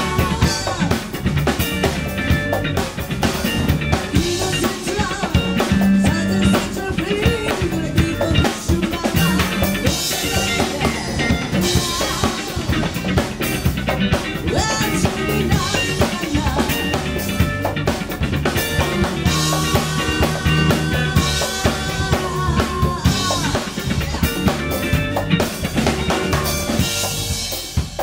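Live band playing an up-tempo rock song: the drum kit keeps a steady beat under electric guitar and bass, with a woman singing lead into a microphone.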